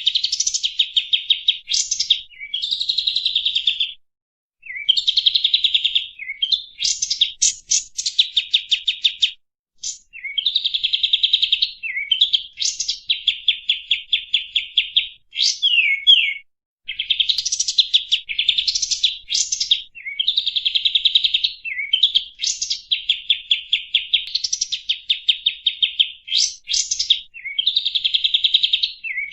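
Kapas tembak bulbul song from a lure recording: fast, rattling trilled phrases, many opening with a short rising note, each a second or two long and repeated after brief pauses.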